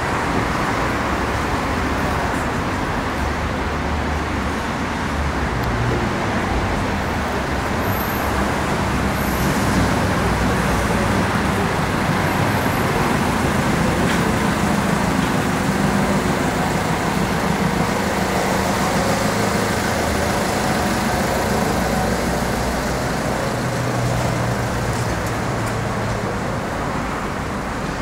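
Milan Metro line M1 train running underground, heard from inside the car: a steady, loud noise of wheels on rails, with a low motor hum that shifts in pitch as the train moves.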